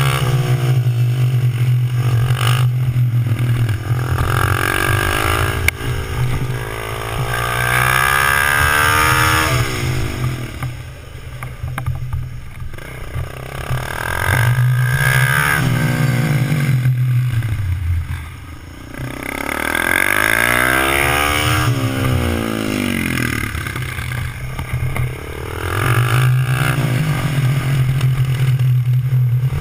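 Mini motorcycle engine revving up and easing off again and again as it is ridden through tight turns, its pitch climbing with each burst of throttle and falling away, with two longer lulls around the middle.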